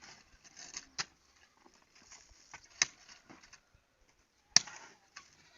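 Three sharp knocks, roughly two seconds apart and the last the loudest, with light scraping and rustling in between.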